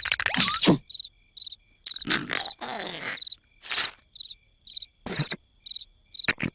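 Cartoon cricket chirping, short high chirps repeating about twice a second, broken by several louder short noises.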